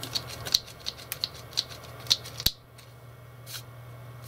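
Small quick-release ratchet bar clamp being worked by its trigger, its ratchet clicking about three times a second; the clicking stops a little past halfway with a sharp click.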